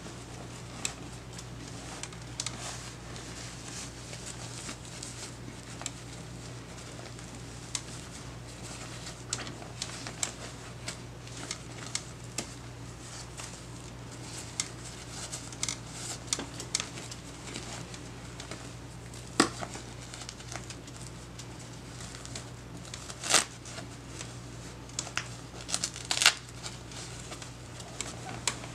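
Disposable diaper crinkling and rustling as it is handled, a run of irregular small crackles with a few louder sharp ones near the end.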